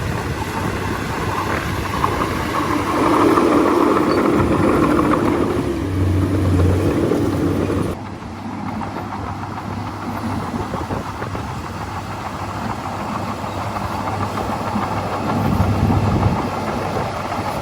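Heavy diesel engine of a bulldozer running. It is louder for a few seconds near the start, then drops abruptly in level partway through and runs on more steadily.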